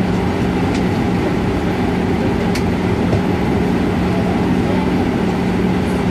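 ATR 72 turboprop engine and its six-bladed propeller running on the ground, heard from inside the cabin as a steady drone with a constant low hum.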